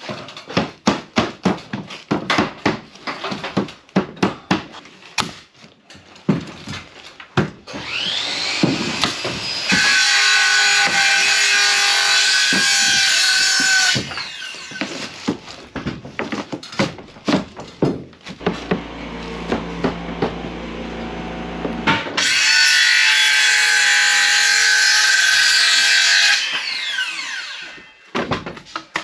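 A rapid run of sharp hammer taps and knocks on wooden ceiling boards, then a cordless circular saw spinning up and cutting through wood twice, each run a few seconds long, winding down near the end.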